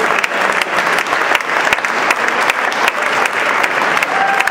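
Audience applauding: many hands clapping continuously at a steady level.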